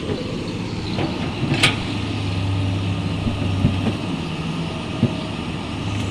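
Excavator's diesel engine running steadily, with a few short knocks; a sharp one about one and a half seconds in is the loudest.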